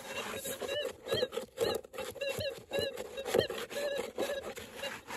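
Minelab Gold Monster metal detector giving short warbling chirps of ground chatter, the noise it makes at full manual sensitivity, with no clear target signal, as the small coil is swept over gravel. Scattered clicks sound along with it.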